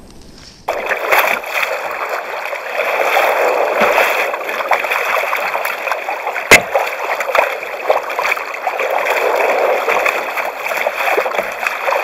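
Sea water splashing and washing around a fishing kayak as it is paddled through choppy water, starting suddenly under a second in and full of short splashes from the paddle strokes. One sharp knock sounds about six and a half seconds in.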